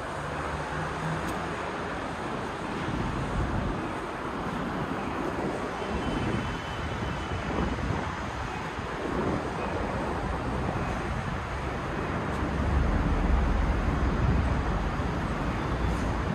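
Steady road traffic noise, with a deeper rumble from a vehicle passing close about twelve seconds in.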